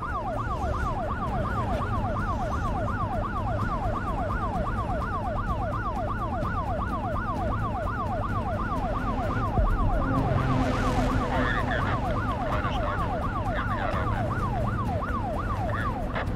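A yelp-style vehicle siren sweeps rapidly up and down in pitch, several times a second, over the low rumble of vehicle engines. A brief rush of noise comes about ten seconds in.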